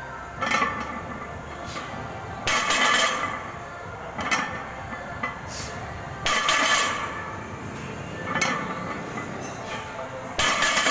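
A 315 lb barbell loaded with steel plates being deadlifted rep after rep: the plates clank and rattle on the sleeves as the bar is set down on the floor and pulled up again, a louder clank about every four seconds with a lighter one between.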